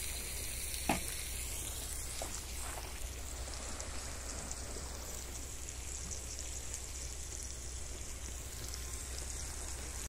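Steady hissing background noise, with one light click about a second in.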